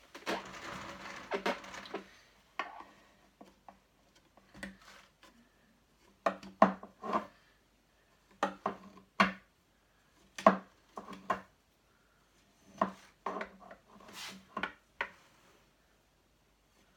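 A rasping scrape, then clusters of sharp wooden knocks and taps against a drum carder's drum as a doffer stick works the carded wool batt loose from the card cloth.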